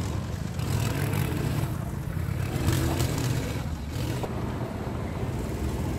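Go-kart engine running as a kart drives around the track, a steady low drone that rises and falls slightly.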